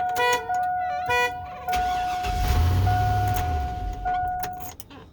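The 2002 Chevy Avalanche's factory security alarm going off: two short horn-like toots about a second apart, over a steady alarm tone that breaks briefly a few times and stops shortly before the end.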